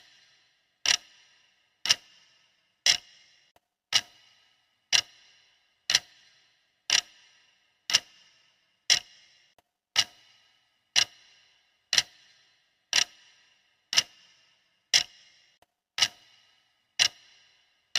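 Clock ticking steadily, one sharp tick each second with a short ring.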